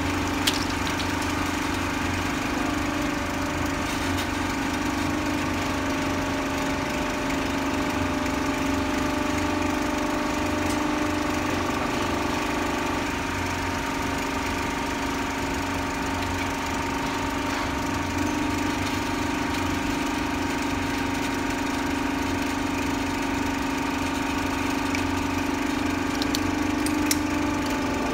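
50-ton hydraulic press's pump motor running with a steady multi-pitched hum. A sharp crack of plastic sounds about half a second in, and a few more near the end as the ram crushes toy blocks.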